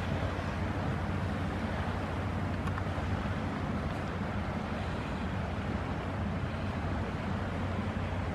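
Steady low hum with an even hiss of wind over it, unchanging throughout.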